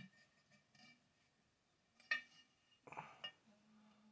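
Near silence with faint handling noises from a chainsaw fuel tank and fuel line: a sharp click about two seconds in and a short clatter about three seconds in.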